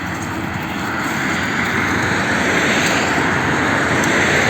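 Steady rushing noise of a passing vehicle, slowly growing louder.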